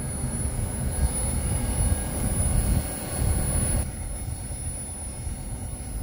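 LG Multi V VRF outdoor unit running, its condenser fans and compressor making a steady rumble of moving air. The hiss above the rumble drops away about four seconds in.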